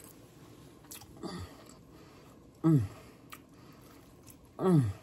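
A woman eating, giving short hums of enjoyment that each fall in pitch: a faint one early, then two louder ones about halfway and near the end. A few light clicks of a fork on a plate in between.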